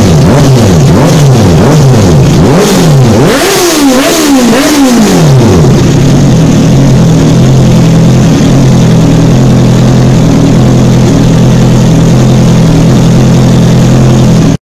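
Honda CBR650F's inline-four engine, breathing through an Amuro GP1 carbon full-system exhaust, revved in a string of quick throttle blips, about one a second. After about five seconds it settles into a steady idle, and the sound cuts off just before the end.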